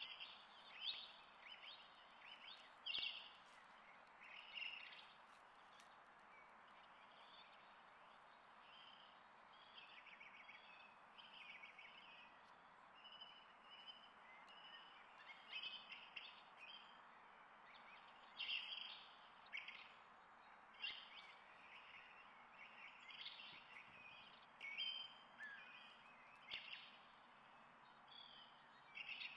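Small birds singing and chirping, many short high calls coming every second or so, over a faint steady hiss of outdoor background noise.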